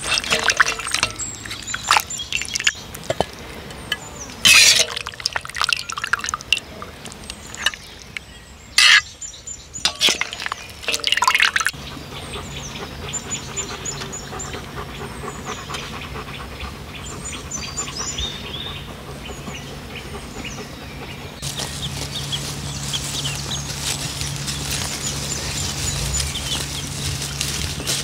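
A slotted metal spatula scrapes and clanks against a cauldron as duck is stirred in its juices, in sharp strokes for about the first twelve seconds. After that, small birds chirp over a steady low hum.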